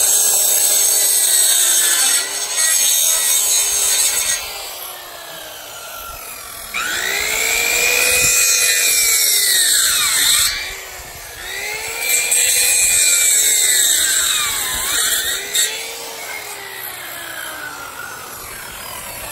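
Handheld circular saw cutting through wooden fence boards to trim them flush with the gate's 2x4 frame, in several loud passes with quieter runs between them. The motor's pitch rises and falls in arcs with each pass as the blade bites into the wood and frees up.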